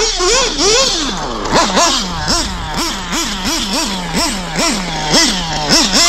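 Nitro RC buggy's FX glow engine revving hard in quick throttle bursts, its high whine rising and falling about twice a second.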